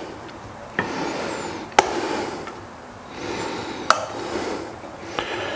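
Sauced chicken wings tipped from a metal bowl onto a ceramic platter: three sharp knocks, about one, two and four seconds in, with soft sliding and rubbing noise in between.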